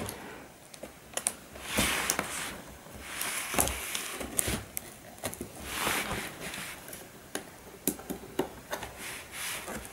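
Scissors cutting through the packing tape along the seams of a cardboard box: several rasping cuts of about half a second to a second, with small clicks and taps on the cardboard in between.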